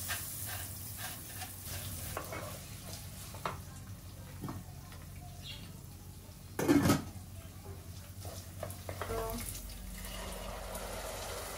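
Toasted vermicelli and basmati rice being stirred together in hot oil in a pot: a light sizzle with scattered small clicks of the spoon against the pot, and one louder knock a little past the middle.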